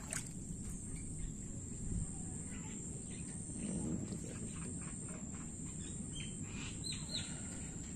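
Birds chirping in short scattered calls, with a quick run of louder chirps near the end, over a steady high-pitched insect hum and a low rumble.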